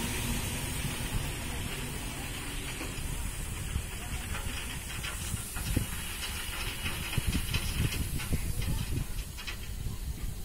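Ballast train of hopper wagons rolling slowly while discharging ballast onto the track: a steady rushing hiss over a low rumble, with scattered sharp clicks and knocks from about halfway on.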